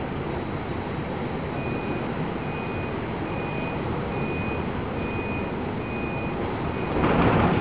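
Steady noise of wind and heavy sea aboard a ship in a storm. From about a second and a half in, a single high electronic alarm beep repeats evenly, a little faster than once a second. Near the end a sudden louder rush of noise comes in.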